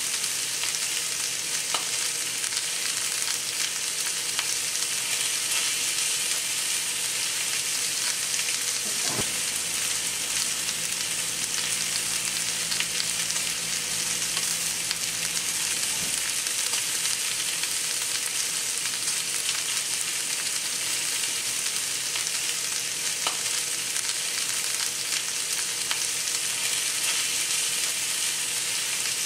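New York strip steaks and garlic searing in a hot cast iron skillet, a steady sizzle with a few faint clicks. A low hum joins for several seconds in the middle.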